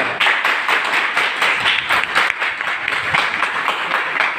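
Small audience applauding, a steady run of many hand claps.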